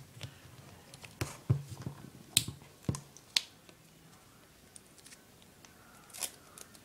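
Duct tape being handled as a strip is taken off the roll: a handful of sharp clicks and snaps, then a short rasp about six seconds in.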